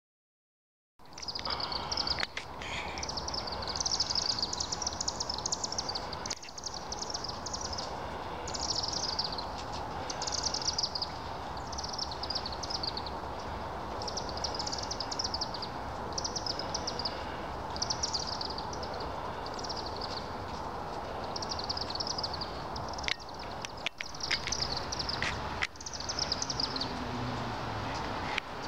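A flock of chimney swifts circling a roost chimney, calling in rapid, high chittering twitters, one burst after another, over a steady low background rumble. The calls start about a second in, and a few sharp clicks come near the end.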